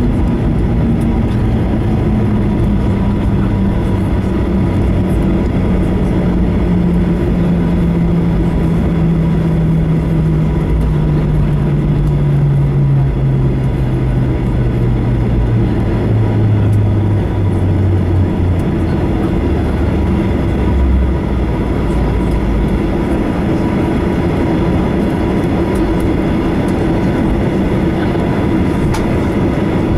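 Cabin noise in a Boeing 737-800 slowing after landing: a steady loud rumble of engines and rolling wheels, with a low tone that falls steadily in pitch over the first eighteen seconds or so as the jet loses speed, then a steady rumble while it taxis.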